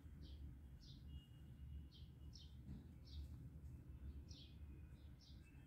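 Faint bird chirps: a series of short, high calls coming about one or two a second, over a steady low hum.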